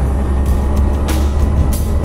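Background music with a heavy low bass and a beat of sharp drum hits.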